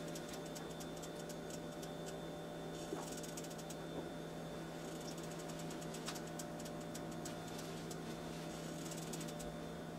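Ground venison starting to sizzle in a skillet on an electric coil burner: irregular clusters of faint crackles and pops, with a few sharper ticks, over a steady low hum.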